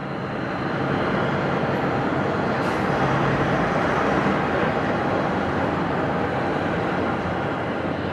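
Embraer 195 airliner's two GE CF34-10E turbofan engines running: steady jet noise that swells over the first second and then holds level, with a faint high whine above it.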